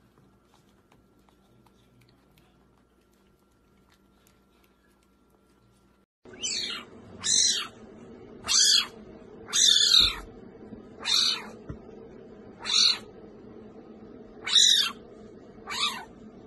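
After about six seconds of near silence, a serval kitten calls repeatedly. There are eight loud, high calls about one to one and a half seconds apart, each sliding steeply down in pitch.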